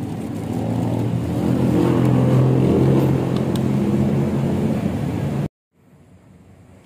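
A motor engine running and growing louder over a few seconds. It cuts off abruptly about five and a half seconds in, leaving a much quieter hum.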